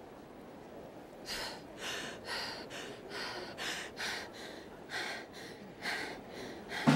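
A boy panting hard, about ten quick breaths at roughly two a second, starting about a second in.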